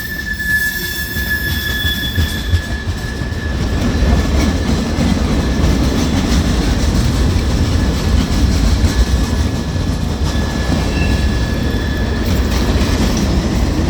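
Train running on rails with a steady low rumble. A thin, high wheel squeal sounds over it and fades out a little past halfway.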